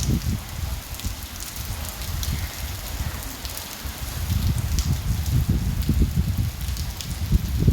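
Light rain with strong gusty wind: an even patter of raindrops with scattered sharp drop ticks over a low, surging wind rumble that swells in the second half.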